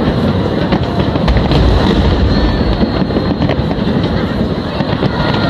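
Aerial firework shells bursting in quick succession: a steady run of booms and sharp cracks over a continuous low rumble.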